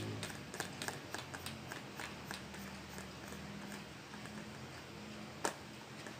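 Hard plastic clicking and rubbing as PVC pipe fittings are handled and turned together by hand: many small clicks early on that thin out, with one sharper click about five and a half seconds in, over a steady low hum.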